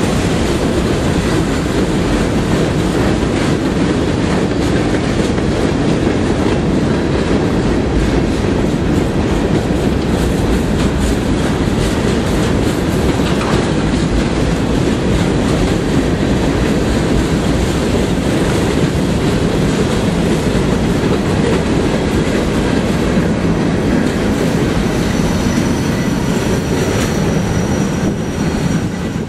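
Freight cars of a Norfolk Southern train rolling past close by: a steady rumble with wheels clacking over the rail joints. A faint, thin, high wheel squeal comes in near the end.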